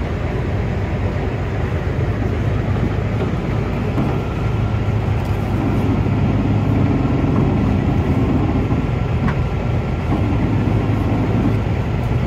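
Heavy machine's engine running steadily with a low hum, working a little harder from about six seconds in as it pushes the load.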